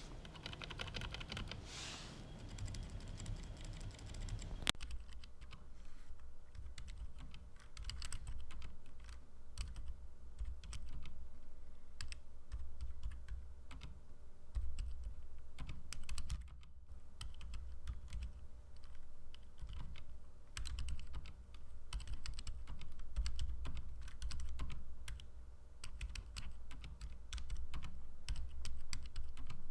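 Typing on an Ajazz mechanical keyboard fitted with Outemu Silent White switches and pudding keycaps: rapid, irregular key presses with a low thud under each stroke. The sound changes abruptly about five seconds in.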